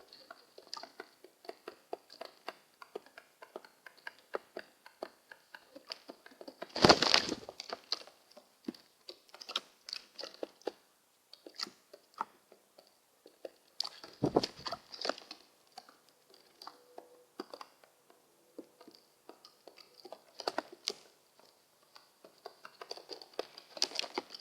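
Pigeons pecking at food: a rapid, irregular run of small clicks and taps from beaks striking seed and a hard surface, with two louder thumps about seven and fourteen seconds in.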